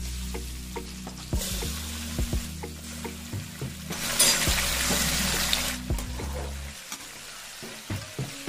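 Raw boneless chicken pieces sizzling as they go into hot oil in a metal pan, the sizzle strongest from about four to six seconds in, with scattered knocks of hand and spatula against the pan.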